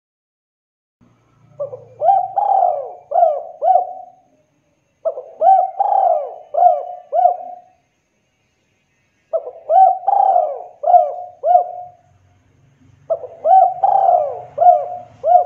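Spotted dove cooing: four phrases of about five short hooting notes each, with a pause of a second or two between phrases.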